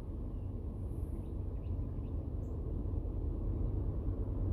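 Low diesel rumble of three Norfolk Southern locomotives working a stack train up a grade, growing slowly louder as the train approaches. A few bird chirps sound over it about a second and a half in.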